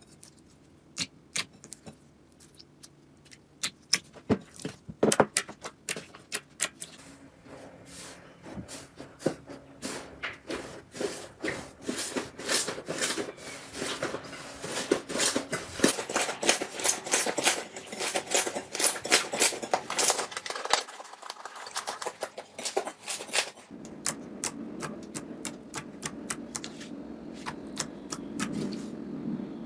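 Slime being pressed and squeezed by hand, giving sharp crackling clicks and pops. These start sparse, thicken into dense crackling midway, and ease into softer, continuous squishing near the end.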